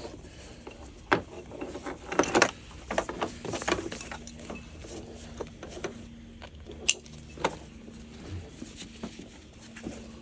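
A nylon chest rig and its H harness being handled and refitted: scattered rustles of webbing and light clicks of buckles and hardware, with a faint steady hum underneath.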